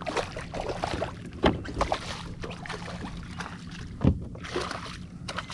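A hooked speckled trout thrashing and splashing at the surface beside a kayak, with irregular splashes and knocks, the sharpest about four seconds in.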